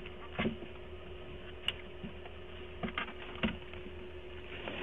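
Scattered knocks and clicks, a few of them about a second apart, as things are handled in the back of an SUV during a search, over a steady hum.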